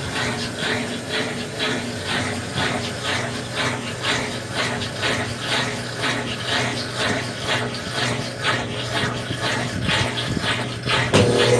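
Consul Facilite top-load washing machine running, with a steady motor hum and a rhythmic scraping clatter about two to three times a second. Music starts near the end.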